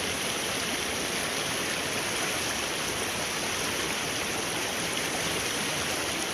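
Flowing river water running steadily, an even hiss of current with no breaks.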